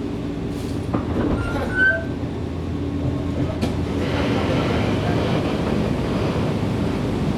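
Running sound of a Nankai 7100-series electric train heard from inside the passenger car: a steady low hum of motors and wheels on rail. There is a brief squeal just before 2 s and a sharp click at about 3.5 s, and the noise grows louder over the second half.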